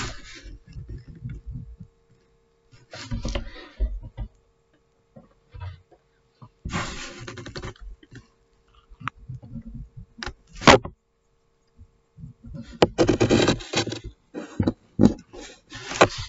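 Pencil scratching on paper in short bursts of strokes with pauses between, and a sharp tap about ten seconds in.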